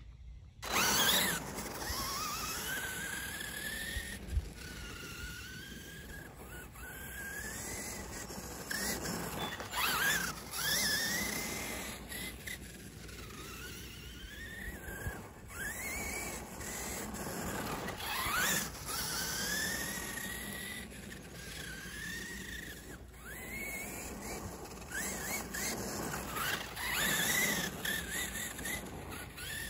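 Losi LMT King Sling RC monster truck's brushless electric motor whining, its pitch rising and falling over and over as the truck speeds up and slows down around the track, over the scrabble of its tyres in loose dirt.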